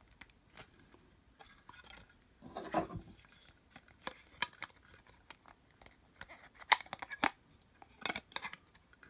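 Clear plastic display stand and a small replica shield being handled and fitted together: scattered light clicks and taps of hard plastic, with a few sharper snaps and a brief rustle about three seconds in.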